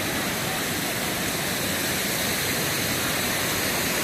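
Waterfall: water pouring down the falls in a steady, even rush.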